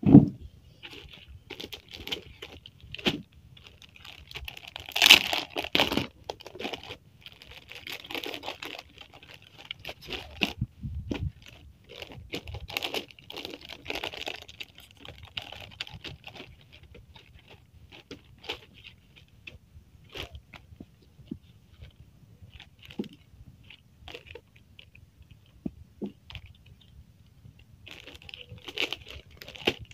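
Plastic packaging crinkling and rustling as it is handled, in irregular bursts with scattered small clicks. A sharp knock comes right at the start, and the loudest rustle comes about five seconds in.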